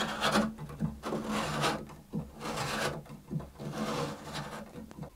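Cello peg reamer, a tapered spiral-fluted steel reamer, scraping as it is twisted by hand in a few separate turns through the wooden peg holes of the pegbox, cleaning out the holes after the old pegs were removed.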